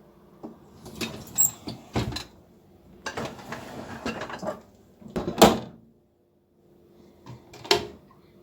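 A series of knocks, clatters and scrapes of household things being handled, the loudest knock about five and a half seconds in.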